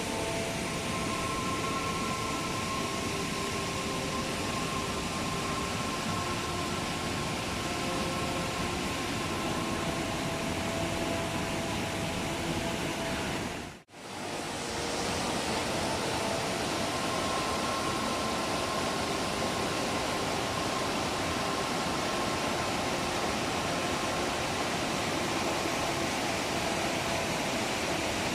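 Steady rush of flowing water from a stream or waterfall, with faint sustained background-music notes over it. The sound fades out briefly about halfway through and comes straight back.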